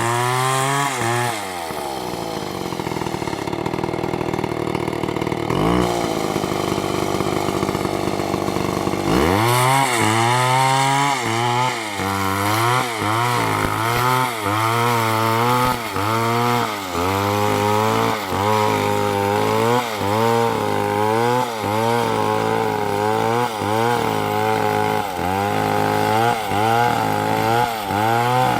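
Two-stroke chainsaw engine: it drops from high revs to idle about a second in, blips briefly, then revs back up and runs with its pitch dipping and recovering about once a second.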